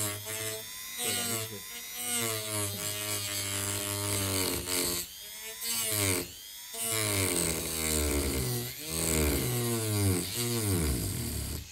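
Handheld electric rotary tool with a cut-off disc cutting a slot through a carbon fibre bonnet; the motor's whine keeps sagging and recovering in pitch as the disc is pressed into the cut and eased off, with a couple of brief dips midway.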